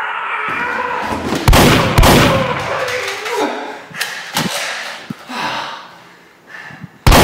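Loud shotgun-blast sound effects for a Nerf shotgun: two bangs close together about a second and a half in, each with a long crashing tail. Smaller knocks follow, and another loud blast comes near the end.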